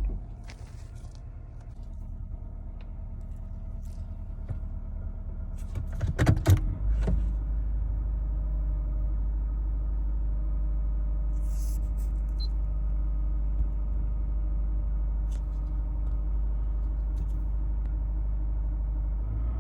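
Honda Civic Hybrid 1.3-litre four-cylinder engine idling rough and shaking, misfiring on cylinders 1 and 3 after it was run low on oil. A few sharp knocks come about six seconds in, after which the low rumble is louder and steadier.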